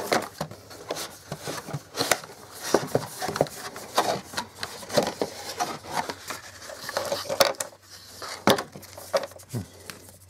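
Cardboard packaging and its contents being handled: irregular rustling, scraping and light knocks as the tablet, charger cable and papers are lifted out of the box.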